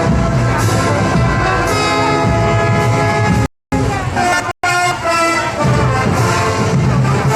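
Festival band music with brass, full and continuous except for two brief, abrupt dropouts to silence a little past the middle.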